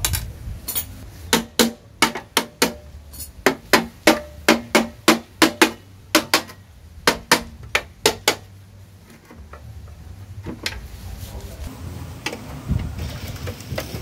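A run of about twenty sharp metallic clacks, two or three a second, from the rusted mechanism of an old Corona SCM typewriter being worked by hand; they stop about eight seconds in, leaving only a low rumble.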